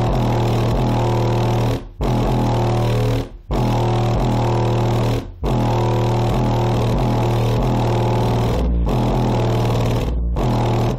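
Rebuilt JL Audio W7 subwoofer, out of its enclosure, playing loud sustained bass notes. The bass cuts out briefly a few times and stops abruptly at the end.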